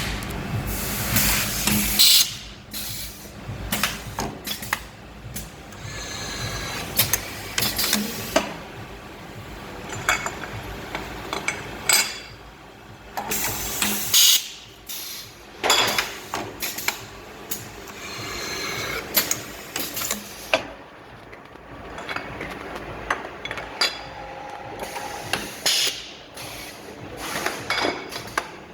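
Automated parts-grouping machine for regulator bodies cycling: repeated sharp mechanical clacks and knocks, with short bursts of air hiss from its pneumatic actuators and a faint steady motor whine.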